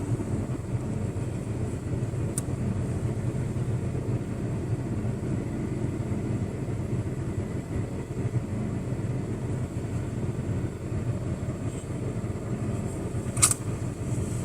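Outdoor street ambience: a steady low rumble of traffic, with a faint sharp tick about two seconds in and a brief, louder high-pitched sound near the end.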